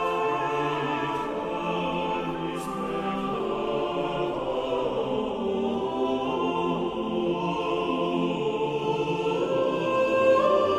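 Choral music: voices singing slow, held chords that move from one to the next about every second.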